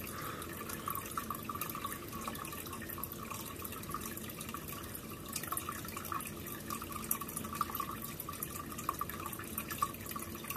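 Aquarium filter water trickling and splashing steadily into the tank, with many small irregular drips and splashes.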